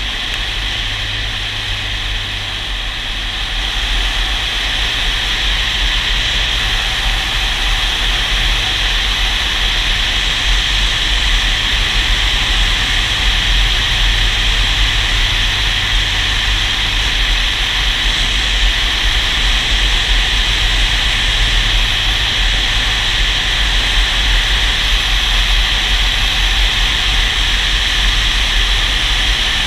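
Steady wind rush from a motorcycle ridden at road speed, with the engine's low drone beneath it; the rush grows louder about four seconds in and then holds.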